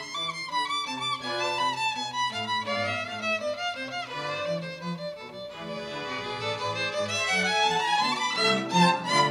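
Violin playing a slow melody with vibrato, with sustained lower notes beneath it.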